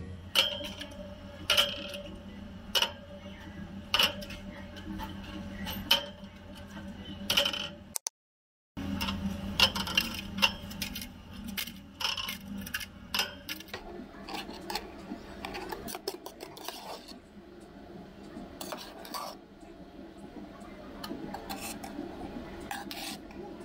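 Cups, dishes and metal utensils clinking and knocking while drinks are made behind a cafe counter. For the first few seconds there is a sharp ringing clink about once a second, then the sound drops out for a moment, followed by quicker, softer clatter.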